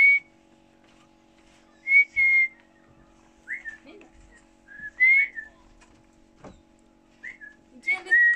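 A series of short, loud whistles, about six, each a quick rising or rising-then-falling note, spaced a second or two apart over a faint steady hum.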